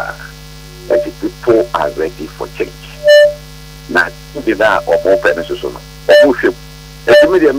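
Steady electrical mains hum on a telephone line, under a voice talking in short bursts, with a short loud tone about three seconds in.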